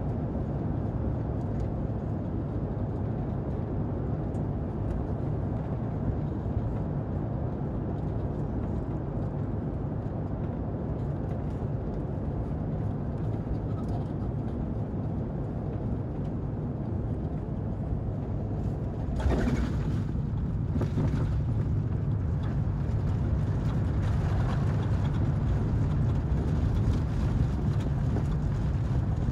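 Steady low rumble of airflow and engines inside an Airbus A350 cabin in flight near the end of the trip. About two-thirds of the way through comes a sudden rush of noise with a few sharp knocks, after which the rumble is a little louder.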